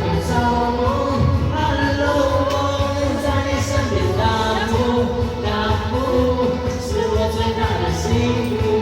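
A pop song playing: a sung melody over a steady, full backing track.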